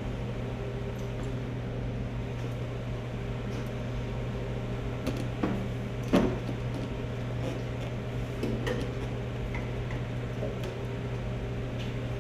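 A steady low hum with a few light knocks and clunks of motorcycle parts being handled, the loudest about six seconds in.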